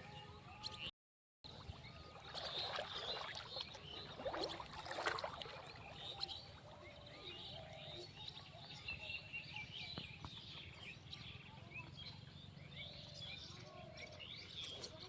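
Small birds chirping repeatedly over a low steady hum, with a louder burst of noise from about two to five seconds in. The sound cuts out completely for a moment about a second in.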